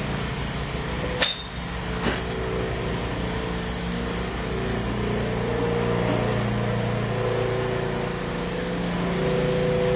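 Steady low mechanical hum, with a sharp clink about a second in and a quick few clinks about two seconds in as hard waste items, glass or metal, knock together during hand sorting.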